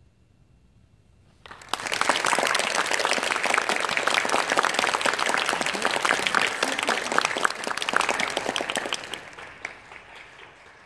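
Audience applauding, breaking out suddenly about a second and a half in and dying away near the end.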